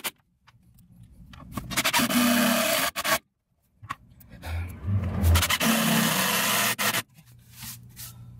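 Scraping of a screwdriver working at a DC circuit breaker's terminals, in two loud stretches about two seconds and six seconds in, separated by a short drop to silence.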